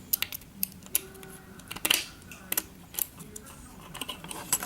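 Irregular sharp metallic clicks and ticks, several a second, from a lock pick and tension tool working the pins of a solid brass pin-tumbler key cylinder.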